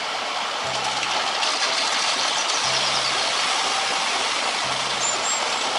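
Concrete mixer truck running, a steady dense noise, as it discharges concrete down its chute.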